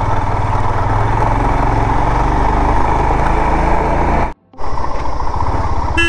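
Motorcycle engine running at riding speed with an even low pulse. The sound cuts out briefly about four seconds in, and a short horn toot comes at the very end.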